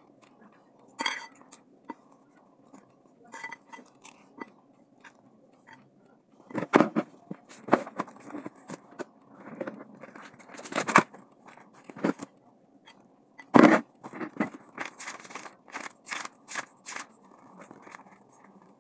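A metal spoon scraping and clinking in a ceramic bowl while someone eats, then a run of irregular rustles and knocks as a book and sheets of paper are handled and flipped.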